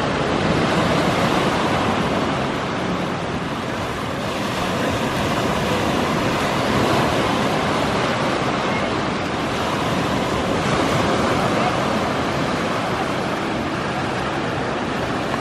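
Small surf breaking on the shore and washing up the sand: a steady rush of water that swells and eases with each wave.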